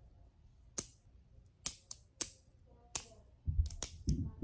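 Sharp plastic clicks from the hinged links of a Wacky Track fidget toy snapping into place as it is twisted and folded: several single clicks at uneven intervals, with dull handling bumps near the end.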